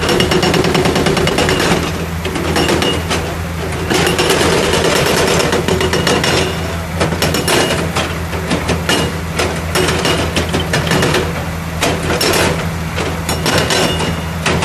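Rock-breaker excavator's hydraulic hammer pounding in rapid repeated strikes over the steady hum of the machine's engine.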